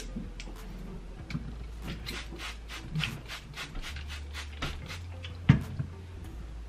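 Plastic trigger spray bottle misting water onto hair in a quick run of short sprays, followed by one louder knock as it is set down on the table.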